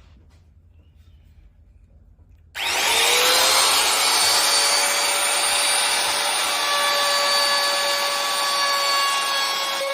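Trim router fitted with a round-over bit switched on about two and a half seconds in, its motor winding up quickly to speed and then running at a steady high whine.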